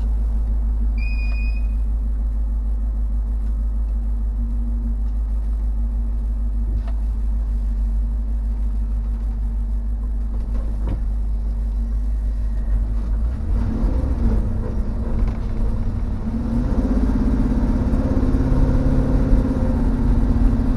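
1952 Ford F1 pickup's engine idling steadily, then rising in pitch and getting louder as the truck pulls away towing a loaded trailer, from about two-thirds of the way through. A short high chirp comes about a second in.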